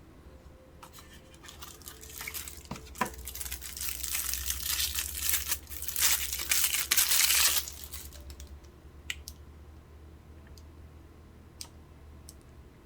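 Folded paper instruction insert rustling and crinkling as it is handled, loudest for a few seconds in the middle, then a few light clicks near the end.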